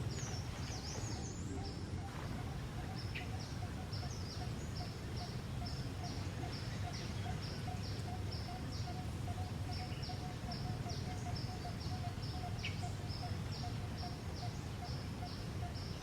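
Outdoor ambience: a long run of high, evenly spaced chirps, about three a second, over a steady low rumble of background noise.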